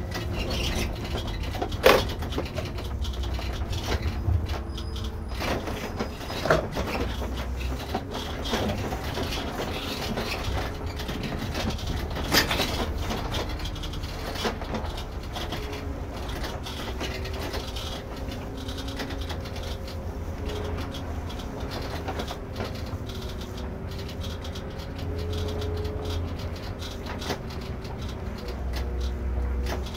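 Irisbus Récréo II coach running, a steady low engine rumble heard from the driver's seat, with a few sharp knocks and rattles, the loudest about 2 and 12 seconds in.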